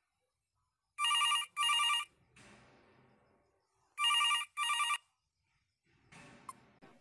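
Phone ringing with an electronic double ring: two short trilling rings about a second in and two more about three seconds later, each pair followed by a faint echo. It signals the incoming video KYC call.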